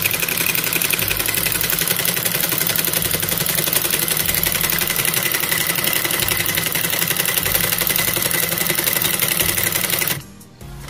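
Industrial high-speed sewing machine running at speed with a buttonhole attachment, the attachment stitching a zigzag buttonhole with a rapid, even mechanical chatter. It stops abruptly about ten seconds in.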